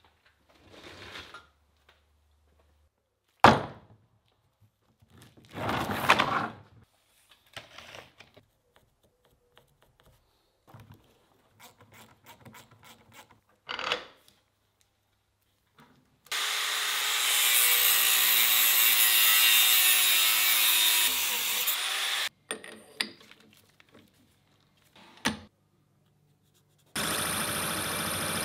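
Metalworking workshop sounds: scattered clunks and knocks, with one sharp loud thunk about three and a half seconds in. In the middle a loud steady noisy power tool runs for about six seconds. Near the end a metal lathe starts and runs steadily.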